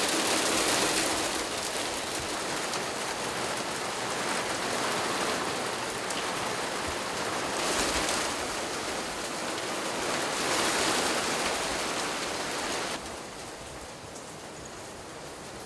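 Small hail and rain pelting down in a dense, steady hiss that swells now and then. About thirteen seconds in it drops to a quieter hiss.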